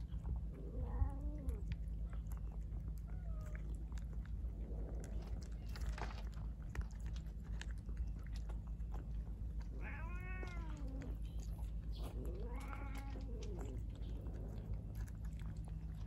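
Stray cats crunching dry kibble from a bowl, with many sharp crunching clicks. A cat meows four times, with two clearer, longer meows past the middle.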